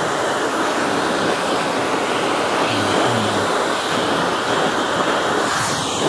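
Dyson hair dryer blowing steadily, a continuous even rush of air running hot.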